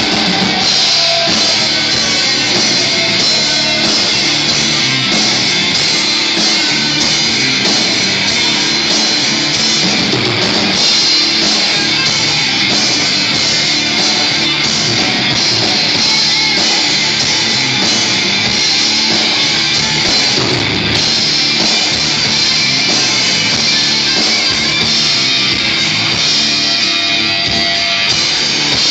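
Live band playing loud rock music with electric guitar and drums, without a break.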